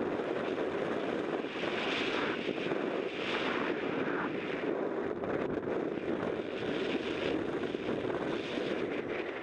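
Wind rushing over the camera microphone in paraglider flight, a steady roar with uneven gusty surges throughout.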